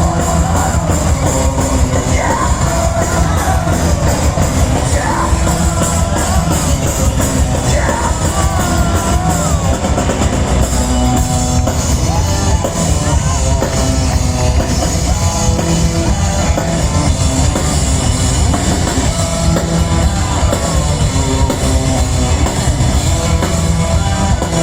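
Live rock band playing loudly, with drum kit, guitars and singing.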